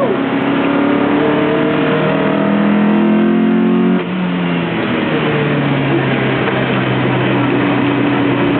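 Lotus Elise four-cylinder engine under hard acceleration, its pitch climbing for about four seconds. It then drops suddenly and runs on at a steadier, lower pitch.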